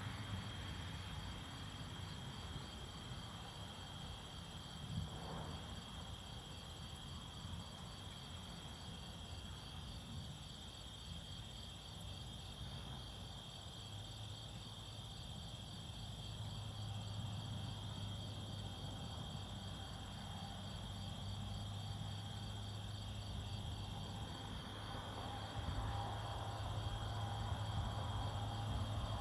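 Night chorus of crickets: a steady high trill, with an evenly pulsing chirp above it, over a low hum that grows stronger in the second half.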